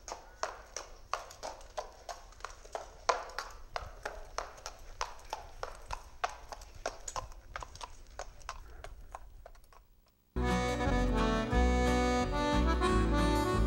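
Hooves of a horse pulling a pony and trap clip-clopping at a walk, about four hoofbeats a second, growing fainter as it moves off. About ten seconds in, music starts suddenly.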